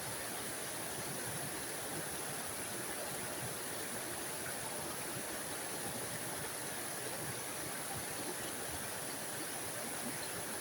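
Small forest waterfall: water splashing and rushing in a steady, even hiss with no breaks.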